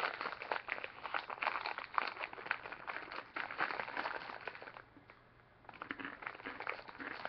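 Crinkly foil snack bag of Corn Nuts being opened and handled, a dense run of irregular crackles, easing off briefly about five seconds in before starting again.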